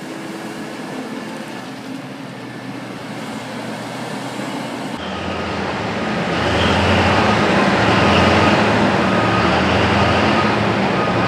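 Diesel engines of heavy mining equipment running under load. The sound changes abruptly about five seconds in to a louder, deeper engine noise.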